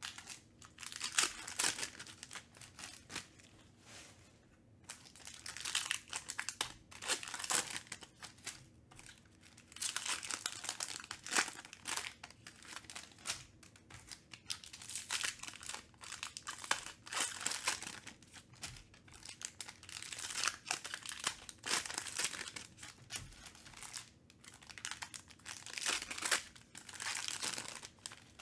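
Foil wrappers of Panini Mosaic football card packs crinkling and tearing as they are ripped open, in irregular bursts of rustling, with cards handled between them.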